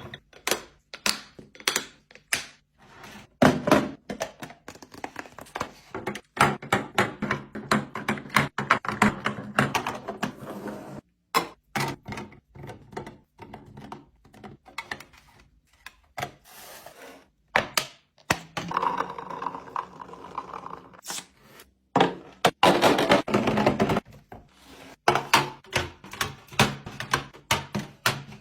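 Food containers and bottles being set down and arranged on fridge shelves: an irregular run of knocks, thunks and clicks, with busier clattering stretches.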